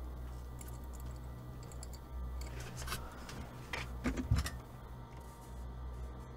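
A steady low hum with a few short clicks and scrapes, a couple of them near three and four seconds in, the last with a dull thump.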